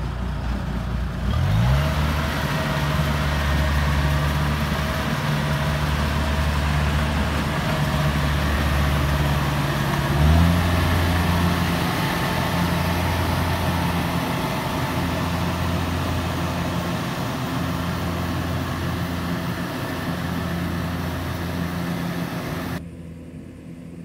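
Kubota combine harvester running: a steady diesel engine hum with a broad mechanical whir over it. The engine picks up in pitch about a second and a half in and again about ten seconds in. The sound cuts off abruptly shortly before the end.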